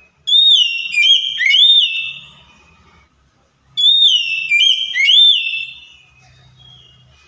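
Oriental magpie-robin (kacer) singing: two loud phrases of clear whistled notes that slide up and down, the same phrase given twice a couple of seconds apart, with faint softer notes between.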